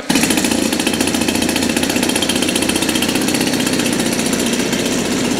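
Zenoah G 80 B twin-cylinder two-stroke petrol engine on its first run, catching suddenly and then running steadily with a fast, even firing beat as its propeller spins.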